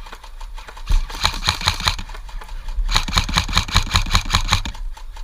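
Airsoft electric rifle firing on full auto: two bursts of rapid, even mechanical clatter, a short one about a second in and a longer one about three seconds in.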